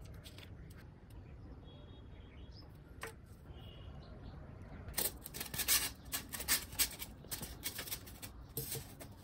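Hands rubbing and handling a block of thermocol (expanded polystyrene foam), making a dense run of crackly rubbing and scraping noises from about halfway through. A single sharp click comes about three seconds in.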